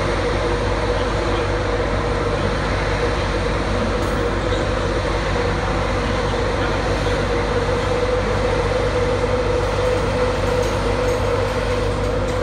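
LNER InterCity 225 electric train, hauled by a Class 91 locomotive, running slowly along the platform: a steady drone with a constant mid-pitched hum.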